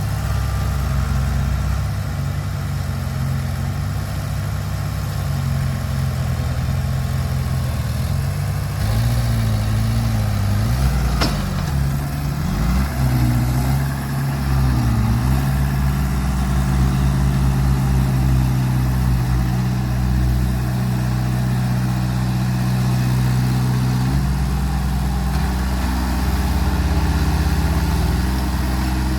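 Heavy earthmoving machine's diesel engine running steadily, its note dipping and rising for several seconds near the middle as the load changes, with one sharp click about 11 seconds in.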